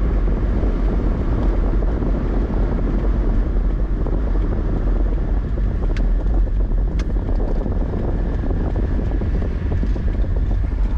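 Steady low rumble of road and engine noise heard from inside a moving car, with two faint clicks about six and seven seconds in.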